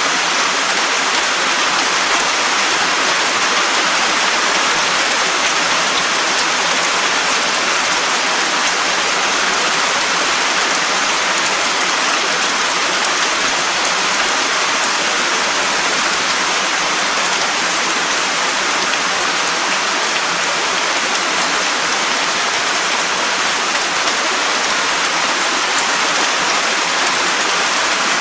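Steady, unbroken rushing of water, a nature-ambience sound effect, even in level throughout.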